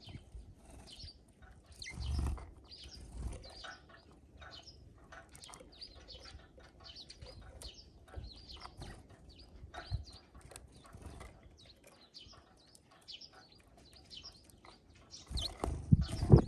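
Small songbirds, sparrows and tits, chirping steadily at a bird feeder. Short flutters of wings come about two seconds in, and a louder burst of flapping comes near the end.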